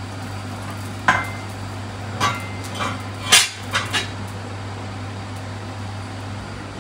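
Metal skimmer and wire strainer clinking against the rim of a large kazan and a plate while fried pieces are lifted out of the oil: about six sharp taps between about one and four seconds in, the loudest near the middle, over a steady low hum.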